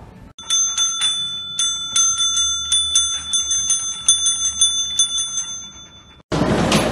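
A dog's paw strikes a counter service bell over and over, about four rapid dings a second, each leaving a bright ringing tone. The ringing stops about a second before the end.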